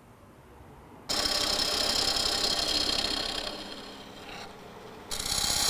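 A hand-held gouge cutting a spinning wooden bowl blank on a wood lathe: a loud, hissing shaving noise that starts suddenly about a second in and eases off after a couple of seconds. A second cut starts near the end.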